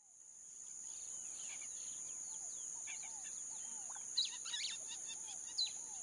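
Rainforest ambience fading in: a steady high-pitched insect drone with many birds chirping and whistling over it. Repeated lower arched whistles run through it, and sharper chirps stand out about four and five and a half seconds in.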